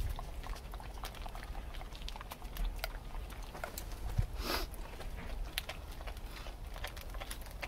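Dog licking peanut butter off a sealed plastic zip-lock bag: a run of small wet licks and smacks against the plastic, with one longer noisy burst about halfway through.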